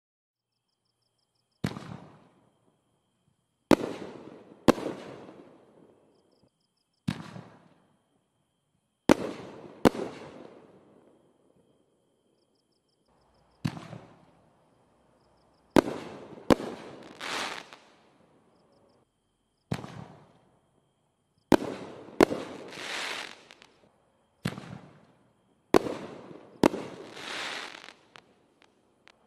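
Brothers Pack'N Heat six-inch double-break canister shells firing and bursting in succession: about fifteen sharp bangs, several in pairs under a second apart, each trailing off, with a few longer hissing swells between them.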